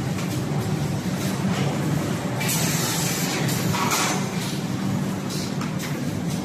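Automatic paper tube production line running: a steady mechanical hum with short hissing bursts at irregular intervals, the longest about two and a half seconds in.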